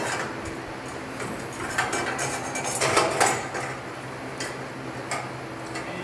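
Steel bicycle steering tube and headset parts clinking and knocking as they are handled and fitted, with a louder rattle about three seconds in. A steady low hum runs underneath.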